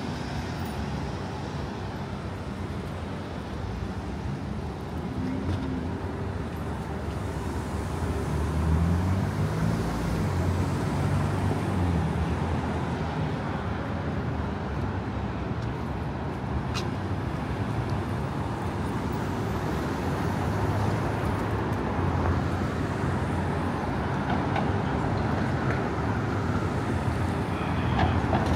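City street traffic: a steady wash of passing cars and buses, with one vehicle's engine rising in pitch as it pulls away about a third of the way in. A single short sharp tick a little past halfway.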